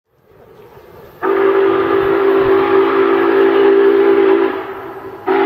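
Union Pacific 844 steam locomotive's chime whistle blowing one long blast of about three seconds, then a short blast near the end.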